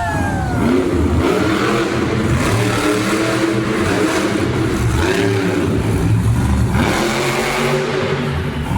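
Monster truck engines revving loudly, their pitch repeatedly rising and falling.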